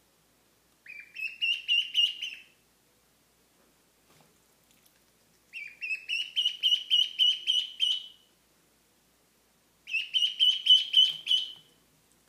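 A duckling peeping loudly in three bouts of rapid, high, repeated peeps, about six a second, each bout rising a little in pitch at its start: the insistent crying of a young duckling.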